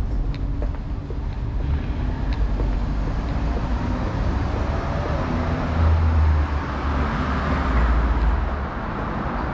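City street traffic: a steady low rumble of passing cars, with one vehicle growing louder and passing about two-thirds of the way through before fading.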